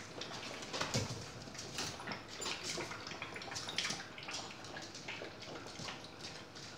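Several puppies eating and lapping from a metal bowl: quick, irregular wet slurps and smacks, with a louder knock about a second in.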